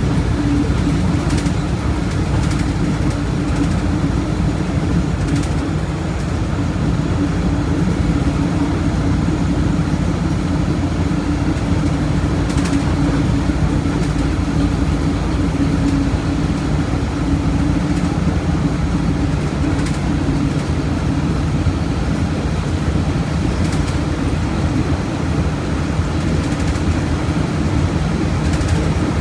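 Diesel engine of a Volkswagen Volksbus 17.230 OD bus running steadily, a loud, even rumble with a constant hum over it.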